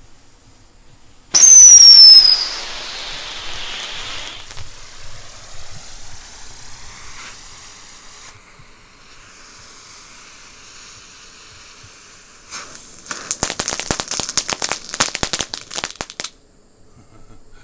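Brothers 'Kitty Hawk' ground novelty firework going off. About a second and a half in it lets out a loud whistle that slides down a little in pitch, then a fizzing spark hiss that fades over several seconds. Near the end comes a run of dense crackling for about four seconds, which then stops.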